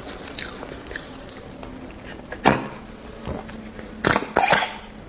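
Close-miked eating sounds of a person biting and sucking bone marrow: one loud sharp sound about halfway through and a quick cluster of several more near the end.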